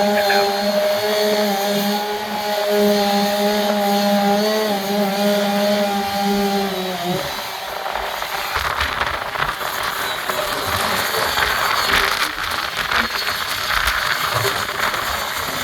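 Two-stroke chainsaw running steadily at high speed, then cutting off about seven seconds in. After that comes a rough, noisy rush with crackles.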